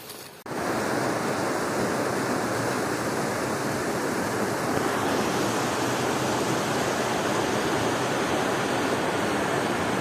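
Steady rushing of river water, starting abruptly about half a second in.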